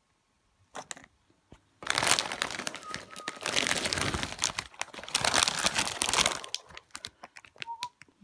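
Rustling and crinkling close to the microphone, loud and dense for about five seconds, then breaking up into scattered crackles and clicks near the end.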